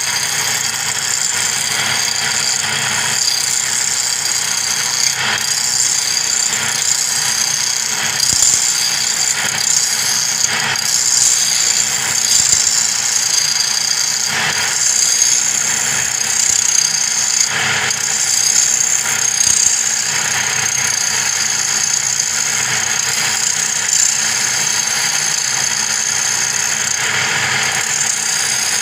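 Wood lathe running steadily with a high whine, as a hand-held turning chisel cuts into the spinning wooden blank in scraping stretches of about a second every few seconds.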